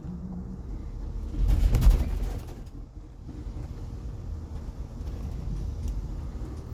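Inside a 2018 Blue Bird electric school bus: low running rumble of the bus, with a brief low brake squeak at the start and a heavy thump and rattle about one and a half seconds in.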